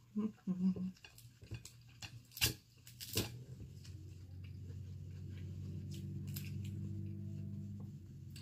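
Dungeness crab shell cracked apart by hand: small shell clicks and two sharp snaps about two and a half and three seconds in. A steady low hum sets in just after the snaps.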